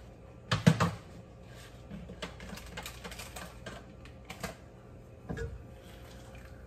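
Kitchen handling noises: a loud clatter about half a second in, a run of light clicks and taps, then a clank near the end as the metal lid of the simmering pot is lifted.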